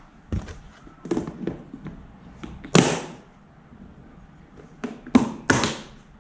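Lid of a clear polypropylene clip-lock storage container set on and its plastic latches snapped shut, sealing an acetone vapour-smoothing bath: a string of sharp plastic clicks and knocks, the loudest about three seconds in and two close together near the end.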